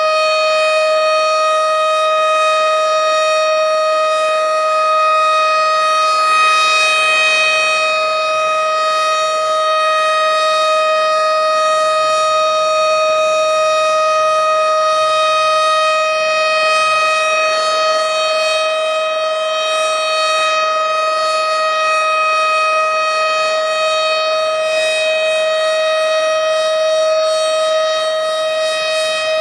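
Tornado warning siren sounding one loud, steady tone that holds the same pitch throughout, without rising or falling.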